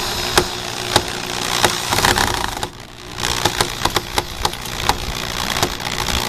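Cordless drill driving a long wood screw into a pre-drilled board, the motor running under load with sharp clicks every half second or so. It eases off briefly just under three seconds in, then drives on.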